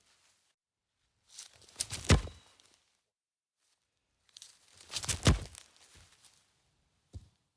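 A football kicked twice, about three seconds apart: each kick is a sharp thud with a short rustle leading into it. A faint tap follows near the end.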